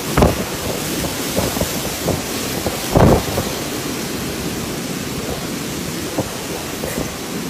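Steady noise of heavy rain, with two short low rumbles: one just after the start and a louder one about three seconds in.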